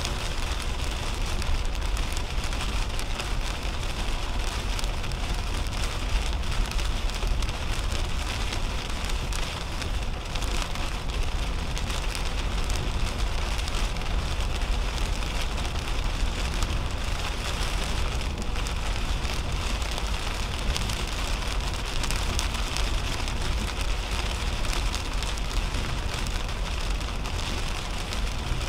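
Heavy rain pattering on a car's windshield and roof, with the steady hiss and low rumble of tyres on a wet highway, heard from inside the cabin of a moving 2010 Toyota Camry.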